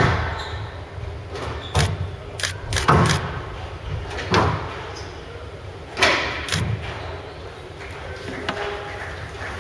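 Squash rally: the ball cracking off rackets and the walls of a glass-walled court in a series of sharp, irregularly spaced hits that echo through a large hall.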